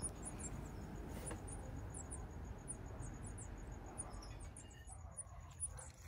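Faint outdoor ambience: many short, high-pitched chirps over a low rumble, with a thin, evenly pulsed high trill that fades out about two-thirds of the way in.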